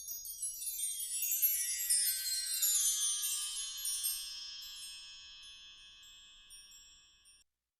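A run of many high chimes sweeping downward in pitch, the notes ringing on and slowly fading, cut off shortly before the end.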